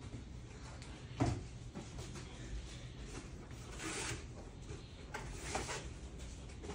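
Supermarket ambience: a steady low hum, with a sharp knock about a second in and two brief rustling swishes later on.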